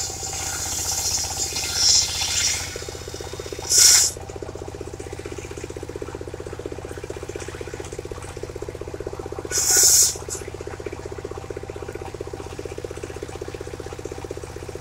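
Engine driving a portable circular sawmill, running steadily with a fast, even putter. The saw blade cuts sengon wood with a loud high hiss that fades over the first couple of seconds, then comes in two brief bursts, about 4 s in and about 10 s in.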